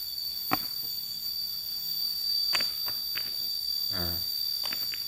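A steady, high-pitched chorus of insects, with a few light clicks and taps through it, the sharpest just after half a second in.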